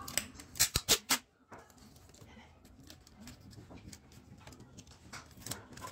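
Clear adhesive tape pulled off its roll in several short, loud rips, then quieter handling as the tape is wrapped around a pen on the printer head; another rip near the end.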